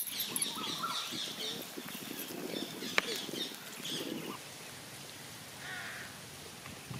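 Birds calling, with crows cawing around it, and a single sharp click about three seconds in.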